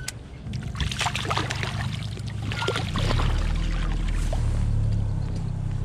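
A hooked striped bass splashing and thrashing at the water's surface beside the boat as it is brought in. There is a cluster of splashes during the first three seconds, over the steady low drone of the boat's motor.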